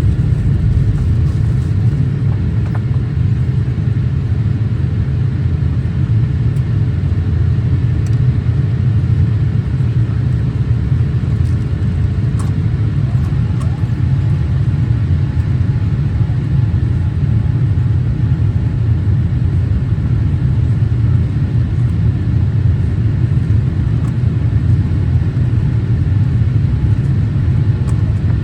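Steady low rumble of a Boeing 787-8 airliner cabin in flight, with a faint steady hum that moves to a higher pitch about halfway through.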